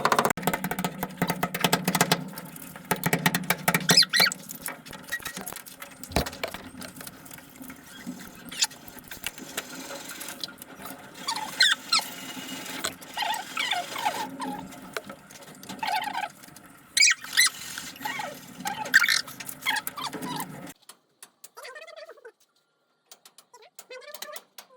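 Sped-up sound of pipe-fitting work: rapid clattering and clicks with high, squeaky chirps. The busy sound cuts off suddenly about 20 seconds in, leaving only scattered faint chirps.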